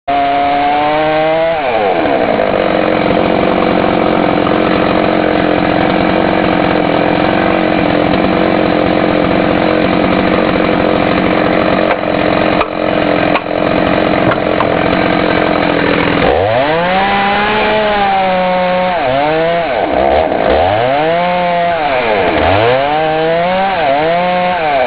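Chainsaw cutting into the base of a thick tree trunk. The engine drops from high revs to a steady, lower pitch under load and holds it. From about two-thirds of the way in it revs up and down repeatedly, about every two seconds.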